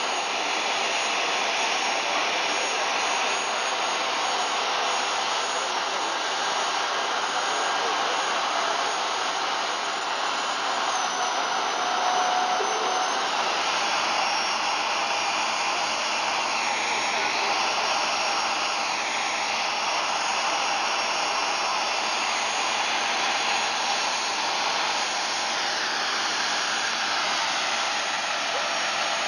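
Steady jet-turbine roar with a high whine that shifts in pitch a few times, from the parked Lockheed C-5B Galaxy.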